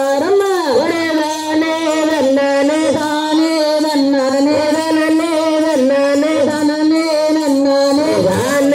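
Tamil kummi folk song (kummi pattu) sung loudly in long held notes with sliding pitch, with faint hand claps from the dancers in time.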